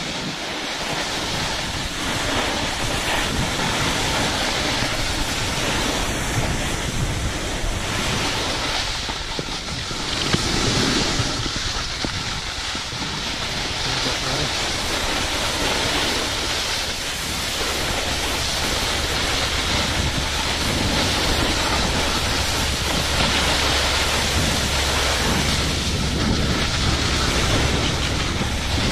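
Wind rushing over the microphone while moving downhill on a ski slope, mixed with the steady hiss of sliding over packed snow.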